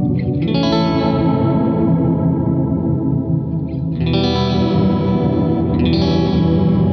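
Electric guitar chords played through a Walrus Audio Lore reverb pedal on its low-octave program: a thick, murky reverb wash with a low octave sustaining underneath. New chords are struck about half a second in, about four seconds in and again near the end.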